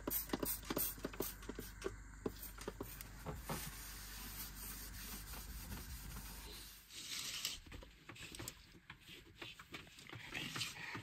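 A trigger spray bottle squirting cleaner and a stainless steel sink being scrubbed, with many quick scrapes over the first few seconds. Faint rustling and small knocks follow later on.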